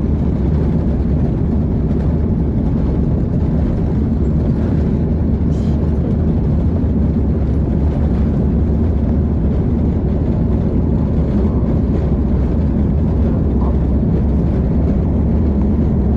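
Steady, loud low rumble of airliner cabin noise: jet engines and airflow heard from inside the passenger cabin.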